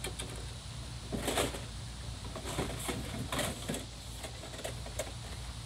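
Scattered short knocks and rustles of someone moving about and handling things, a few clustered around the middle, over a steady low hum.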